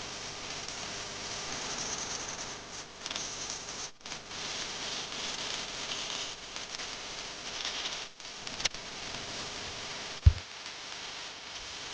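Steel hammer head being worked with an abrasive tool, a steady scratchy hiss that breaks off briefly twice. A sharp click follows the second break, and a single loud low thump comes near the end.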